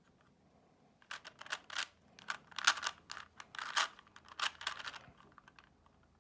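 Plastic Shiroi Rubik's Cube being turned by hand: a run of quick clicking layer turns that starts about a second in and stops about a second before the end.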